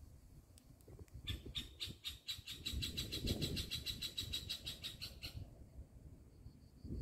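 A cicada singing in a fast, even pulse train of about eight pulses a second, starting about a second in and breaking off after about four seconds, with a fainter one carrying on behind. Low wind rumble on the microphone underneath.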